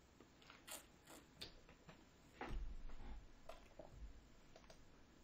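A person taking a drink of water: faint handling clicks and creaks, with a soft low thump about two and a half seconds in.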